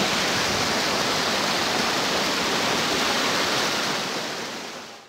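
Close-up rush of water pouring and splashing over the rock ledges of a small cascade, loud and steady, fading out near the end.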